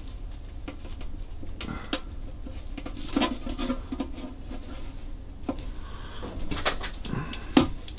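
A razor blade scraping and picking at the steel body of a vintage Dobro resonator guitar around the neck-joint screws, with scattered small clicks and scrapes. A sharp click near the end is the loudest sound.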